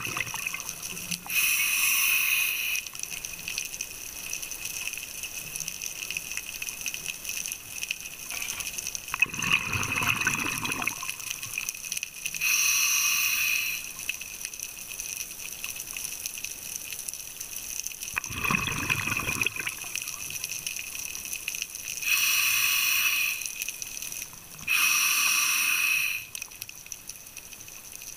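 A scuba diver breathing through a regulator underwater, picked up through the camera housing: four hissing inhalations, each about a second and a half long, with two bubbling exhalations between them, spaced several seconds apart.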